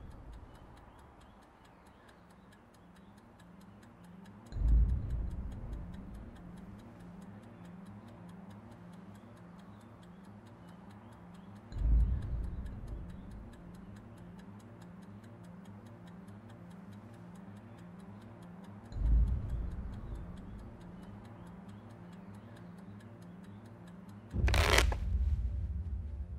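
Steady ticking of a wind-up kitchen timer, with a deep boom about every seven seconds. Near the end comes a quick loud riffle of playing cards being shuffled.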